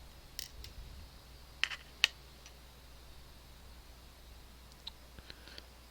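Light, sharp clicks and ticks of small tools and lock parts being handled while the plug of a DOM ix TwinStar dimple lock is taken apart: a few scattered clicks, the two loudest close together about two seconds in, fainter ones near the end.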